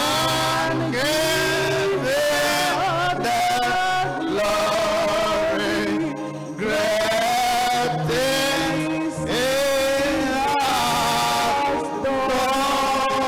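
Gospel praise music in church: a voice singing a gliding melody over band accompaniment with a steady bass line, briefly dipping about six seconds in.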